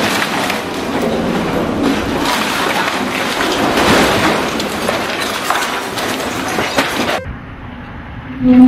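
Full-scale multi-story wood-frame building shaking on a shake table: a dense, continuous clatter of many knocks as the timber structure racks and collapses sideways. It cuts off abruptly about seven seconds in, leaving a quieter low noise.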